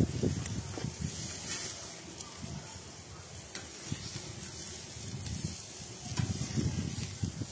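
Meat sizzling on a charcoal barrel grill over flaring flames, with a steady hiss and a few sharp clicks as metal tongs turn the meat, over a low, uneven rumble.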